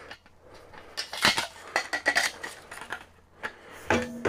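Metal stovepipe sections clinking, knocking and scraping together as they are slid into one another and fitted onto a tent wood stove. There is a run of sharp metallic knocks from about a second in, some ringing briefly, and another knock near the end.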